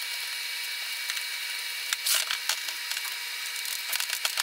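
Small clicks, taps and scrapes of metal parts being handled on a steel workbench as a Tilton master cylinder is fitted to its bracket and its pushrod threaded into the balance-bar clevis, with a louder cluster of knocks about two seconds in. A steady hiss runs underneath.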